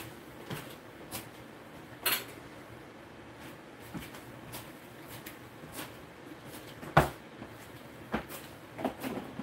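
Scattered knocks and clinks of dishes and containers being handled in a kitchen, with the two sharpest knocks about two seconds and seven seconds in.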